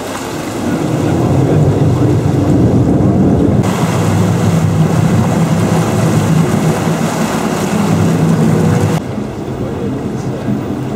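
Water-bus engine running steadily under way, with water rushing past the hull and wind on the microphone. The engine grows louder about a second in and drops back about nine seconds in.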